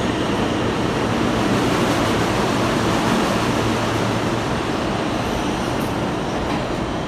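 New York City subway E train pulling out of the station, its cars running past the platform with loud, steady wheel-on-rail noise that eases slightly near the end as the last car goes by.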